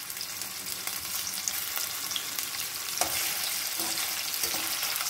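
Paneer cubes sizzling steadily in a little hot oil in a metal kadhai, lightly frying. From about three seconds in, a metal spoon stirs and turns them against the pan.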